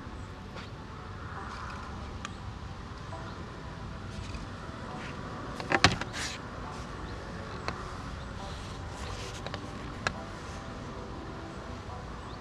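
Steady outdoor background rumble with a few sharp clicks or knocks: a loud quick cluster about six seconds in and a single click about ten seconds in.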